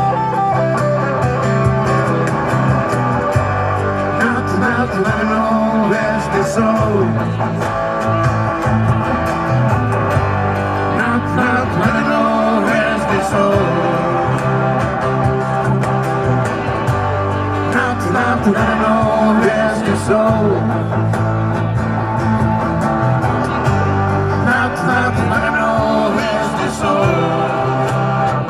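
Live rock band playing, with guitar to the fore over bass and drums.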